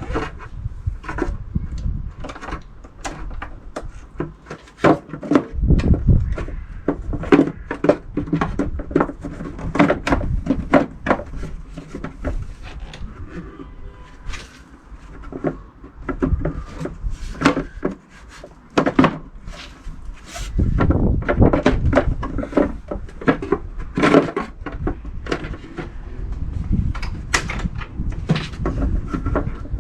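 Irregular clicks and knocks of a car's plastic air filter housing being handled and refitted, over a low rumble that comes and goes.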